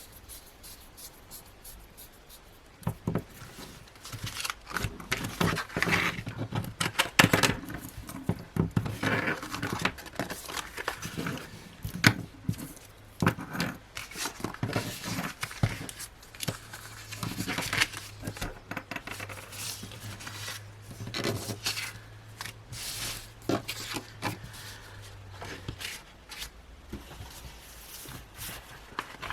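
Hands handling the paper, sticker sheets and plastic packaging of a planner kit: irregular rustling, crinkling, light taps and clicks.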